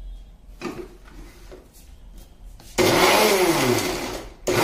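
Electric mixer grinder with a small steel chutney jar grinding a wet green chutney paste. A few light knocks as the jar is seated on the base, then the motor starts loud and sudden about three seconds in, runs for about a second and a half with its pitch wavering under the load, stops briefly and starts again at the very end.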